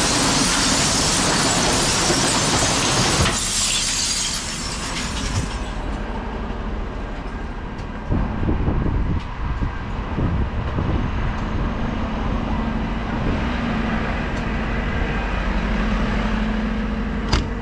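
Glass bottles and jars crashing and rattling into the rear hopper of a refuse truck as a glass bin is emptied, loud for about three seconds and dying away by about five seconds in. The truck's engine runs steadily under it, with a few knocks and a sharp click near the end.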